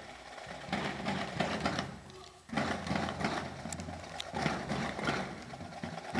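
Marching bass drum struck in uneven, scattered hits, with people talking and a steady low rumble underneath.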